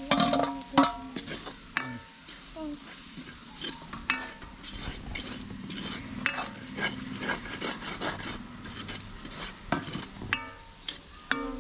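Long-handled metal spatula stirring and scraping fried rice in a large metal wok over a wood fire, with light frying sizzle beneath. It opens with a few sharp metal knocks, then settles into irregular scraping.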